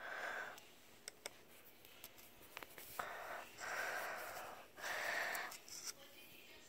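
Faint, close breathing through the nose: several soft breaths in and out, with a few small clicks and taps in between.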